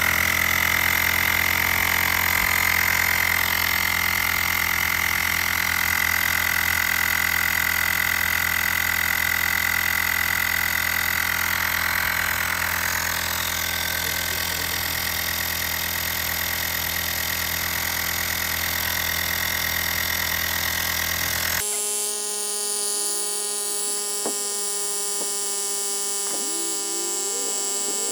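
Xiaomi Mijia portable battery air compressor running steadily while pumping up a tyre, a loud motor buzz with a high whine. About 22 seconds in the sound changes abruptly to a thinner, higher buzz without its low end.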